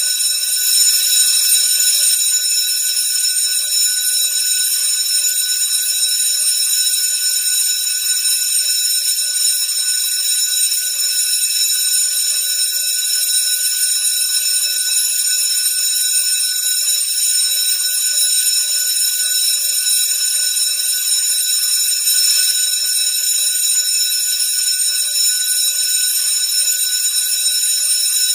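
School bell ringing continuously: a steady, high-pitched ring with no pauses.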